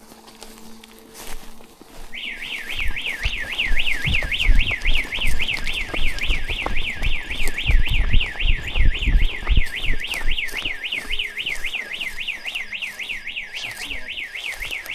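Building security alarm siren going off: a loud electronic warble sweeping rapidly up and down, about three to four sweeps a second, that starts suddenly about two seconds in and keeps going. Heavy low thuds run underneath it for much of the time.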